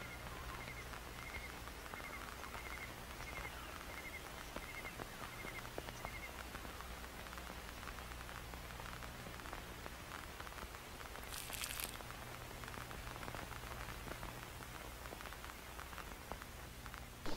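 Faint outdoor nature ambience with a light, steady crackle like rain under a low hum. A small chirp repeats about three times every two seconds for the first six seconds, and a brief hiss comes about twelve seconds in.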